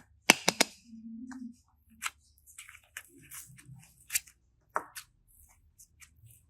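Slime and clay being handled at close range: a run of sharp, irregular clicks, crackles and small squishy noises.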